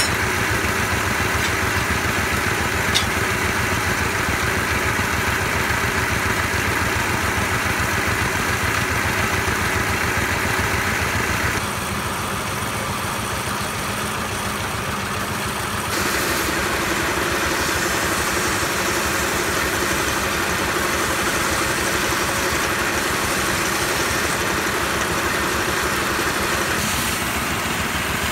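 Belt-driven wood lathe running steadily, its drive motor and pulleys spinning a turned wooden spindle. A short click about three seconds in. The running sound drops a little about twelve seconds in and comes back about four seconds later.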